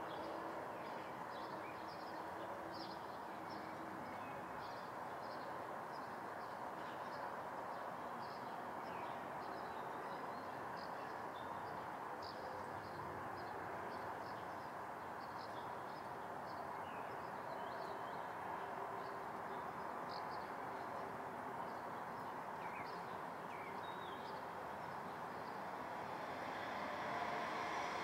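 Summer room ambience: a steady low rumble of background noise with birds outside giving short, high chirps throughout. Near the end the rumble swells.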